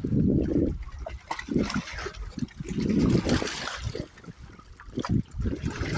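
Water sloshing and trickling in irregular pulses.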